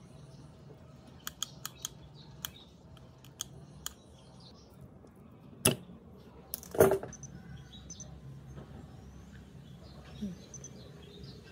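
Small clicks and clatter of hand tools and parts being handled on a workbench, with two louder knocks about six and seven seconds in as tools are put down and picked up.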